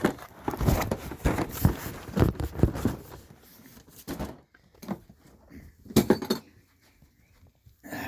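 Clattering and knocking of a cardboard case of blister-packed Hot Wheels cars being handled and pulled open, with a run of knocks through the first three seconds and another short cluster about six seconds in.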